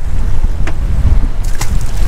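Wind buffeting the microphone aboard a small open boat on choppy sea: a steady low rumble, with two short sharp knocks, the first under a second in and the second about a second and a half in.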